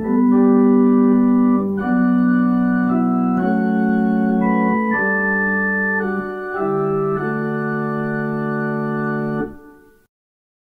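Organ playing the closing hymn in slow, sustained chords that change about every second. The final chord is released about nine and a half seconds in and dies away to silence.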